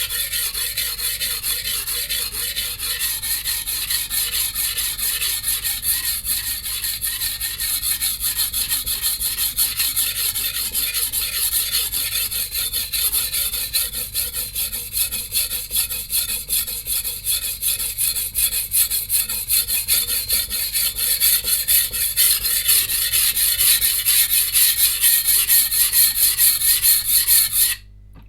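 Steel kitchen-knife blade, a VG10 Chinese cleaver, scraping back and forth on a coarse 180-grit whetstone at about three strokes a second, grinding chips out of the edge. The strokes break off suddenly just before the end.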